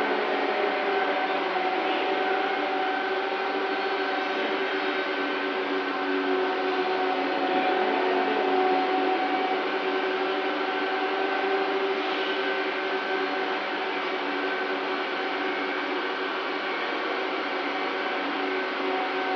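Steady drone of a cargo ship's machinery, with several constant tones over a noisy hum, as its crane lowers a steel rail on a spreader beam.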